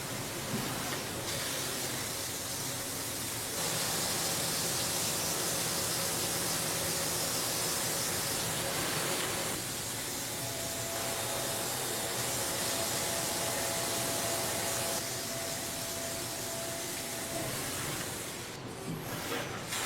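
CNC turning center machining metal: a steady hiss of coolant spray over the running machine. The level shifts abruptly a few times, and a faint steady whine sounds for several seconds in the middle.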